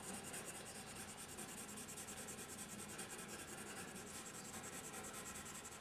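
Faint, steady scratching of pencil on drawing paper, with a fast, even flutter in the hiss.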